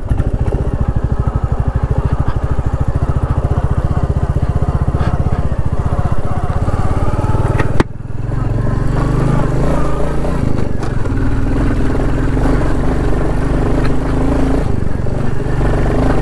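Royal Enfield Classic 350's single-cylinder engine running under way on a dirt track, its exhaust beating in rapid, even pulses. About eight seconds in the sound breaks off abruptly and resumes with a steadier, more even engine note.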